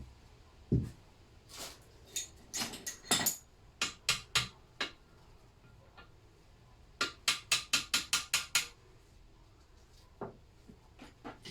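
Metal engine parts and tools clinking and knocking as rockers are fitted onto the rocker shaft of a Lister D diesel. Scattered clicks give way, about seven seconds in, to a quick even run of about nine sharp metallic taps.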